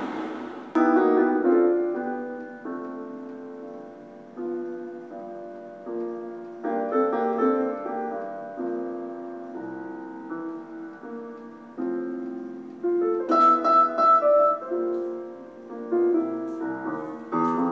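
Piano music: slow chords and melody notes that ring and fade, with a louder phrase of higher notes about three-quarters of the way through.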